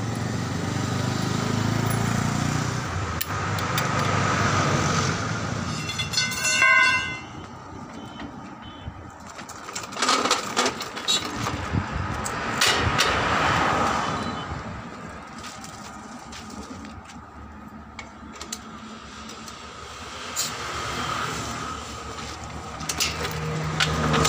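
Road traffic passing a roadside tyre shop, with a short pulsing horn toot about six seconds in, and clanks and rattles as a wheeled pneumatic impact-wrench stand for truck wheel nuts is pushed up to the wheel.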